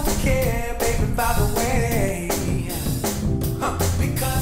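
A pop song with a singer and a drum kit, the soundtrack of a pyromusical firework display.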